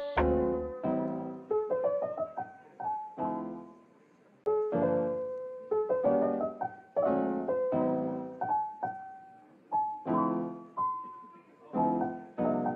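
Background music: a soft piano tune of chords and single melody notes, each ringing and fading away, in short phrases with brief pauses between them.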